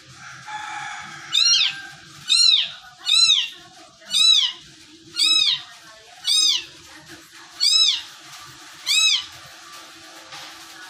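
Kitten meowing eight times, about once a second, each a short high-pitched call that rises and falls in pitch.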